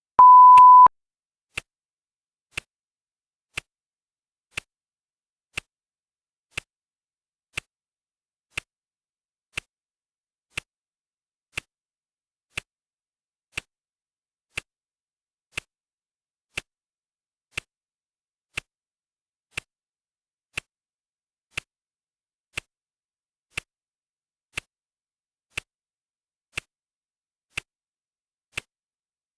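Clock ticking once a second, steady and even, the background of a countdown timer. Just after the start a single loud electronic beep sounds for under a second, the timer's once-a-minute signal that another minute has passed.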